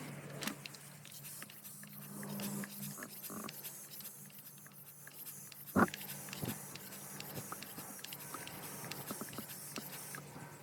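Scattered clicks and knocks of handling, with one sharp knock about six seconds in, over a low steady hum that fades after the first few seconds.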